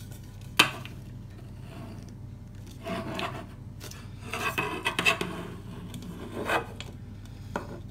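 Handling noise from a carbon-fibre road handlebar being turned over in the hands: one sharp knock a little over half a second in, then several short bursts of rubbing and scraping.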